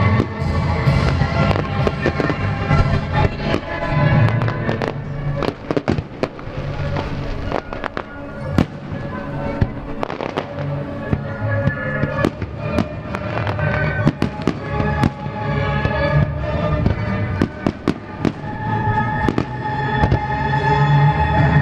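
Aerial fireworks shells bursting one after another in quick, irregular succession, over music with long held notes.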